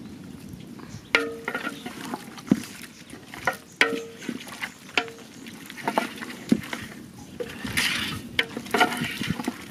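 Wooden spoon stirring a thick lamb stew in a large aluminium pot: wet squelching of meat and sauce, with irregular knocks of the spoon against the pot, a few of them ringing briefly.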